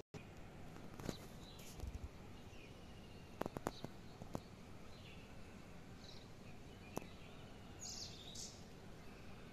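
Faint outdoor ambience with birds chirping now and then, short high calls scattered through it. A few sharp clicks stand out, a quick cluster around the middle and one more later.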